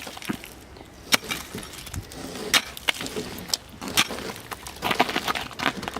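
Thick ice being chipped and knocked off a car's roof: a rapid, irregular string of sharp cracks and knocks, some louder than others.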